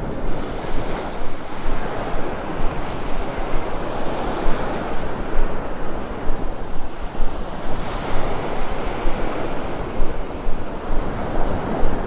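Gentle surf: small waves breaking and washing up the sand at the water's edge, swelling every few seconds, with wind rumbling on the microphone.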